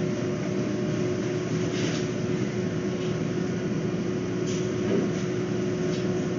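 Steady mechanical hum with one constant low tone, with a few faint, brief rustles as a cloth cover is pulled off a wire cage.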